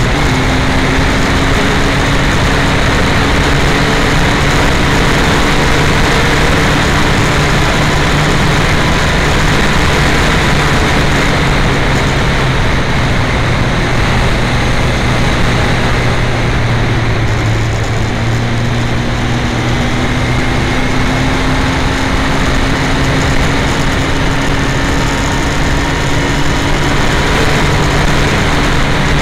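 Yamaha FZ1 sport bike's inline-four engine running at road speed, the pitch sagging a little just past halfway and then climbing again. Heavy wind buffeting on the uncovered camera microphone runs through it.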